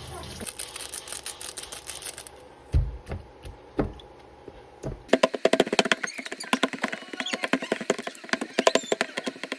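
Pork chops frying in hot oil: a hissing sizzle, then from about halfway a fast run of sharp pops and crackles as the fat spatters. A few dull thumps sound in between.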